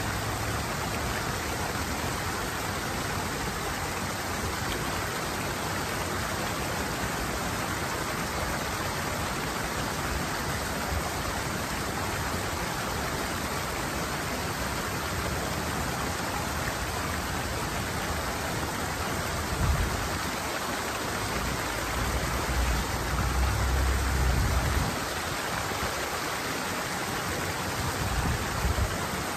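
Steady rushing of water pouring over a small weir-like drop in a stream. A few low rumbling bumps come through about two-thirds of the way in and again near the end.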